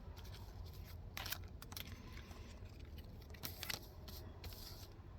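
Soft, scattered rustles and light scrapes of Pokémon trading cards being handled and flipped over.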